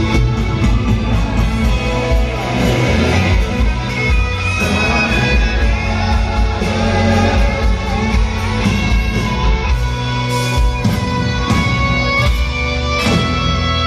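Live rock band playing through an arena PA, electric guitar to the fore over bass and drums, with violins on stage, heard from among the audience.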